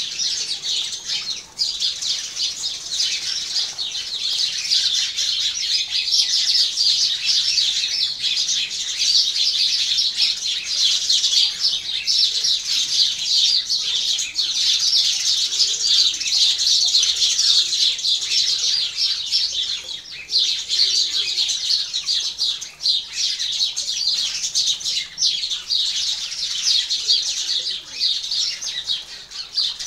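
A flock of house sparrows chirping together: a dense, unbroken chatter of short, high chirps from many birds at once.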